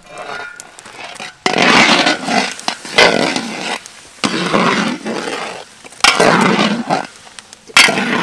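Loud sizzling from a hot iron wok of bubbling liquid, flaring up suddenly about five times as cooked rice is added, each burst dying away over about a second.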